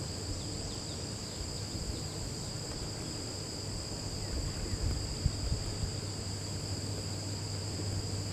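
Steady high-pitched insect chorus, unbroken, over a low rumble.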